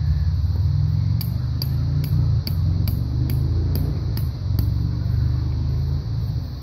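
Low, steady rumble on the microphone, typical of wind or rubbing on the phone. About a second in, a quick run of about nine light, sharp ticks comes at roughly two a second, then stops before the end.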